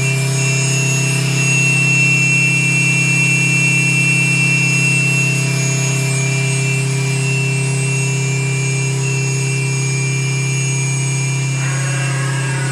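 Daewoo DMV-500 vertical machining center's spindle running at its top speed of 10,000 RPM: a steady, unchanging hum with thin high whining tones over it.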